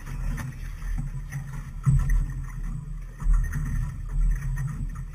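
Low, uneven rumble aboard a small fishing boat on the water, swelling and easing rather than holding steady.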